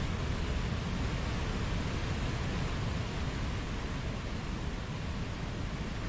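Mountain waterfall: falling water rushing steadily, with a deep rumble underneath.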